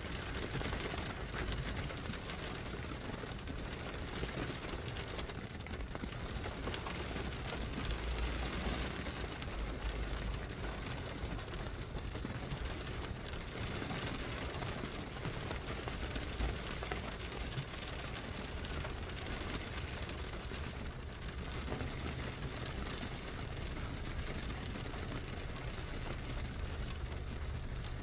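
Steady rain, a continuous even hiss, over a low steady rumble.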